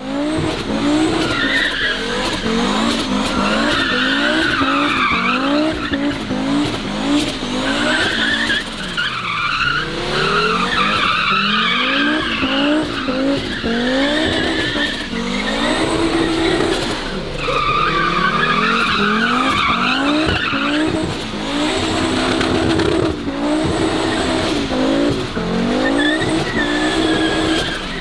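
A car drifting: its engine revs hard in quick repeated rising sweeps, about two a second, and its rear tyres squeal and skid in long stretches as it slides sideways round in circles.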